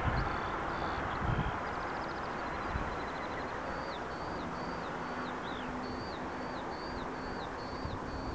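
A bird singing: a brief trill, then a run of short, high notes that each drop in pitch, about two a second, over a steady rush of background noise.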